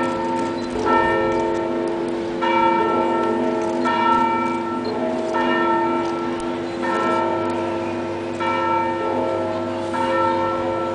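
Church bells ringing, a bell struck about every second and a half, each stroke ringing on over the steady hum of the tones before. They are rung for the benediction with the Blessed Sacrament held up in the monstrance.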